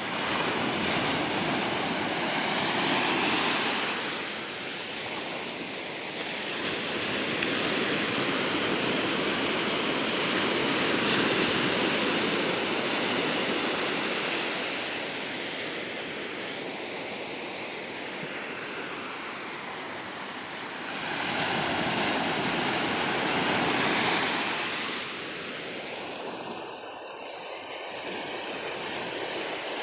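Small sea waves breaking and washing up a sandy beach: a steady hiss of surf that rises and falls in three long swells.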